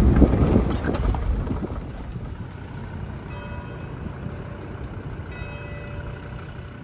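A vehicle running, with wind noise on the microphone. It is loudest for about the first two seconds, then drops to a quieter, steady rumble.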